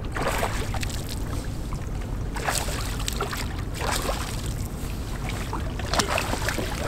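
Water splashing in short bursts about four times beside a small boat, over a steady low rumble.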